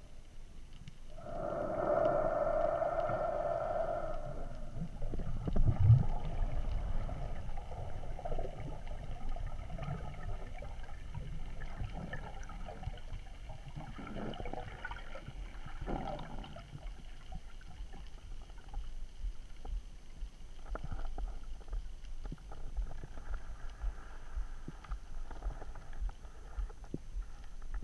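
Underwater sound picked up through a camera housing during a breath-hold dive: a low rumble of water moving past the diver, with many small crackles and clicks. A louder rushing sound starts about a second in and lasts about three seconds.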